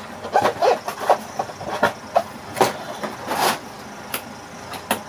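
Small cardboard product boxes being handled: a lid shut and boxes set down and slid about, a run of short irregular knocks and rustles with a longer scraping rustle near the middle.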